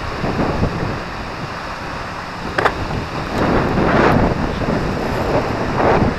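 Wind buffeting the microphone in gusts, with choppy water lapping at the boat's hull and one sharp knock about two and a half seconds in.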